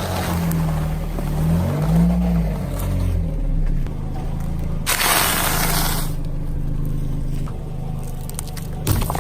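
A car's engine running and rising and falling in pitch as the car rolls over objects, with scraping and crunching under the tyres. About five seconds in there is a loud hissing burst lasting about a second, and there are a few sharp cracks near the end.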